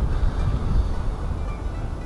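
Wind buffeting the microphone: a steady low rumble that rises and falls in gusts.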